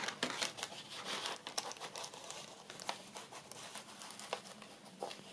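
Paper and card rustling and crinkling, with a scatter of small clicks and taps: a journal card being handled and tried in a paper pocket of a handmade journal.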